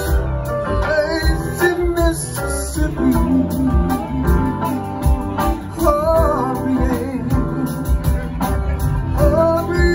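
Live band playing: drum kit, electric guitar and keyboards, with a male voice singing over them.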